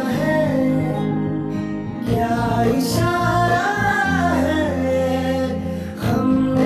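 Background music: a Hindi love song with a sung melody over guitar and steady bass notes.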